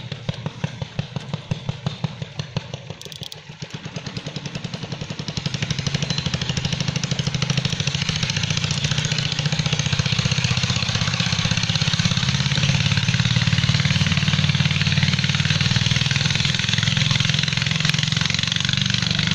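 A small engine running, first in slow regular beats, then faster and louder from about five seconds in, holding steady at the higher speed.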